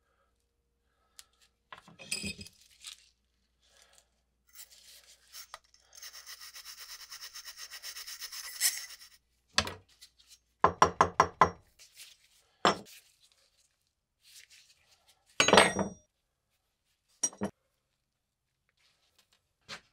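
Small steel parts of a WW2 British spike bayonet being handled and taken apart by hand: scattered metal clicks and clinks. About six seconds in comes a few seconds of quick rhythmic rasping. Near eleven seconds there is a fast run of sharp clinks, and a heavier knock follows a few seconds later.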